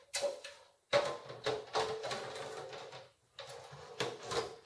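Sheet-metal outer cover of an HP ProLiant MicroServer Gen8 being lowered and slid back onto the chassis: a run of metal clunks and clicks with scraping in between.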